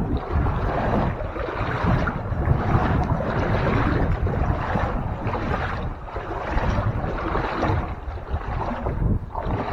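Boots wading through standing floodwater, sloshing and splashing with each step at about one step a second, with low rumble from the microphone.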